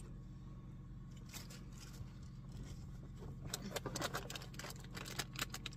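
Snack packaging being handled and crinkled, quiet at first, then a run of rapid crackles from about halfway through. A steady low hum lies underneath.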